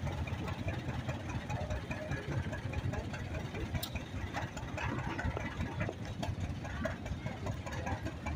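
Vintage John Deere two-cylinder tractor engine idling low and steady while the tractor creeps along.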